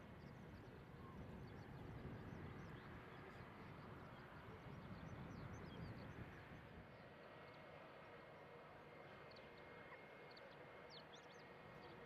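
Faint, distant jet engines of a taxiing Airbus A320, a low rumble with a thin steady whine. Scattered faint bird chirps come through, a few more of them near the end.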